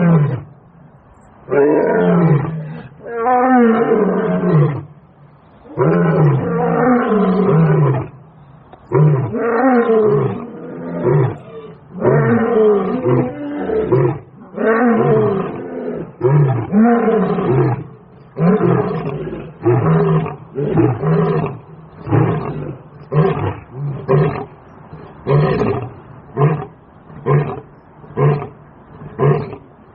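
A lion roaring: a long bout of calls, each falling in pitch, that grow shorter and come faster toward the end, finishing in a run of short grunts.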